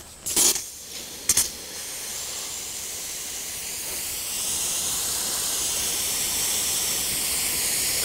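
Water jetting hard from a brass twist nozzle on a garden hose under about 50 psi of well-system pressure: a steady high hiss of spray after two short bursts as the flow starts, growing louder about four seconds in. This is the pressure tank and plumbing being bled down.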